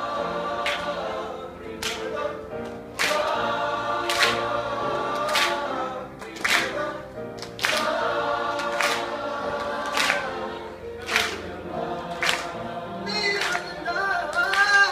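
Mixed choir singing with sharp hand claps on the beat, about one a second. Near the end the singing breaks off into shouts and cheering.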